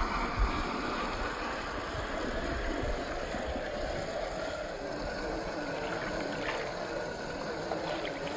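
Shallow river water flowing and sloshing around a Traxxas TRX-4 Land Rover Defender RC crawler as it wades through, with a brief knock about half a second in.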